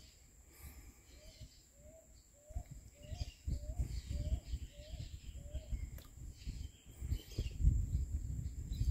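Birds calling: one bird gives a run of about eight short, low notes, roughly two a second, while others chirp higher up. A low rumbling noise grows louder in the second half, with a steady thin high tone throughout.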